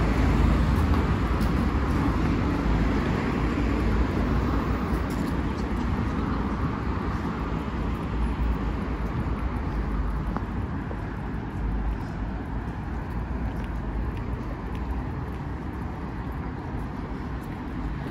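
Street traffic noise: a steady low rumble of cars on a road that slowly fades.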